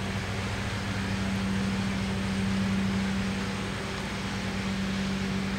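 Steady machine hum with one constant low tone, like a fan or air-conditioning unit running.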